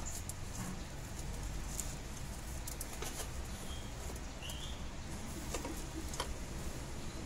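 Faint scattered clicks and taps of hands and tools working on the engine's front timing-gear end, over a low steady rumble of background noise. A single short chirp comes near the middle.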